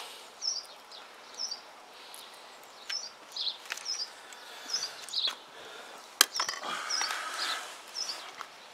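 A small bird chirping over and over, a short high call about once a second, with scattered light clicks and knocks of metal parts being handled. A sharp click about six seconds in is the loudest sound.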